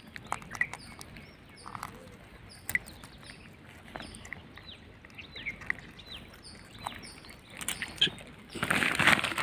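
Birds chirping in short repeated calls, some falling in pitch, over scattered small ticks and drips of water. Near the end a louder burst of water sloshing and splashing.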